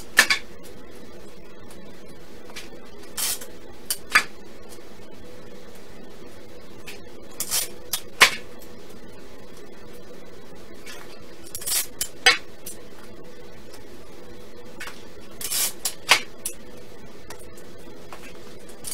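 Hollow plastic Easter eggs being handled on a table: a short rustle, then a sharp plastic click, repeating about every four seconds, five times, over a steady low hum.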